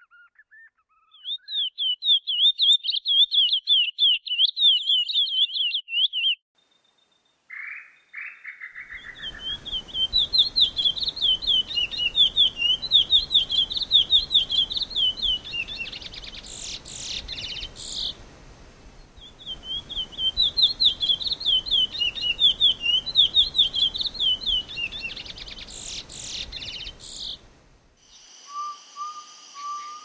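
Chestnut-bellied seed finch (curió) singing: three long, fast, warbling phrases with pauses between them. In the last couple of seconds a different, steady sound takes over.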